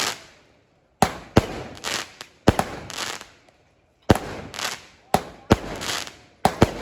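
A 36-shot fireworks cake (repeater) firing shot after shot, about one every second or so. Each shot is a sharp bang followed by a short crackling tail.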